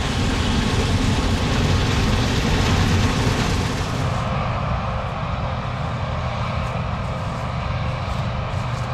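Combine harvester running steadily in the field, a continuous engine and machinery drone. About four seconds in, the hissy top end drops away and the drone goes on duller.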